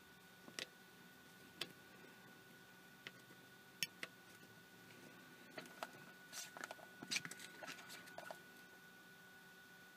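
Thin metal pick scratching and clicking against the monocular's housing around the image intensifier tube. A few faint, separate ticks come in the first four seconds, then a quick cluster of clicks and scrapes after about five and a half seconds.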